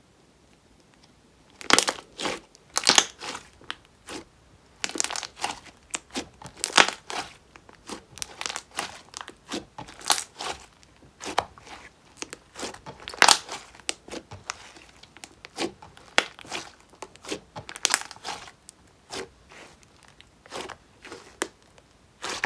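Hands pressing and kneading a thick slime, with eyeshadow and glitter mixed in, against a countertop. It gives irregular sharp pops and crackles, several a second, starting about two seconds in.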